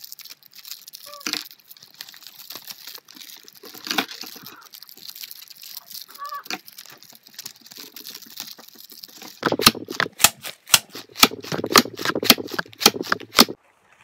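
Cellophane candy wrappers crinkling as wrapped peppermint hard candies are snipped open with scissors and emptied into a plastic zip bag. About two-thirds of the way in, a run of sharp strikes, roughly three to four a second, as the hard candies in the bag are pounded to crush them.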